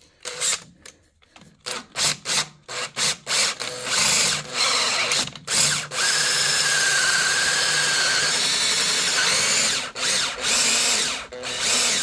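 Makita cordless drill boring through a steel panel with a larger bit, enlarging a smaller pilot hole. It starts with short stop-start bursts, then runs steadily for about four seconds with a thin high whine from the bit cutting the metal, and ends with one more short burst near the end.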